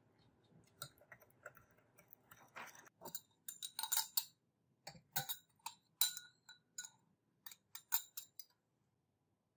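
Laboratory glassware clinking: a run of light taps and clinks with a short high ring, as a glass thermometer and beakers knock together. The clinks bunch in the middle and stop about a second before the end.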